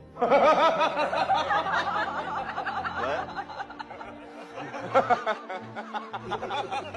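A person laughing in rapid giggles, strongest over the first three seconds and then tailing off into quieter bursts.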